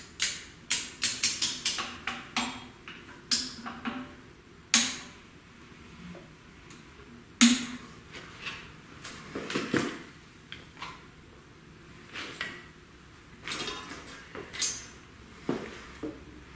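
Metal hand tools clicking and clinking in irregular bursts, with a quick run of clicks in the first couple of seconds, as the LS V8's crankshaft is turned by hand with a wrench to read bellhousing alignment on a dial indicator.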